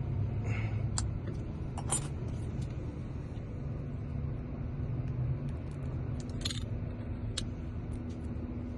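Car keys clinking with a few sharp small clicks as they are handled, over a steady low hum.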